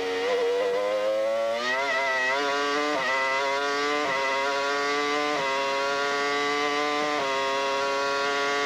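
Williams-BMW Formula One car's V10 engine heard from onboard: the engine note falls as the car slows, then climbs under acceleration, with four quick upshifts, each a small drop in pitch followed by a slower climb.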